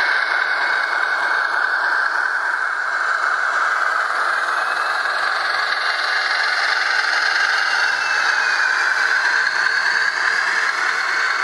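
Bachmann HO scale ALCO S4 model locomotive's Soundtraxx sound decoder playing a steady ALCO 539T diesel engine sound through its small onboard speaker.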